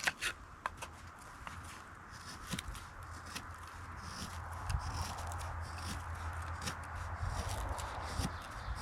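Scandinavian-grind knife blade scraping thin curls off a stick of wood in short, separate strokes while carving a feather stick, over a steady low hum and hiss.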